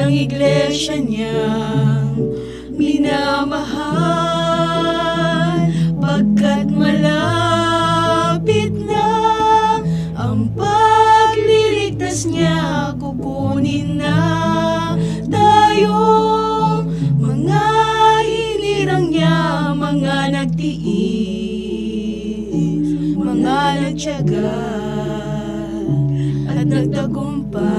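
Female vocal trio singing a song in harmony, with held, gliding notes, over an instrumental accompaniment.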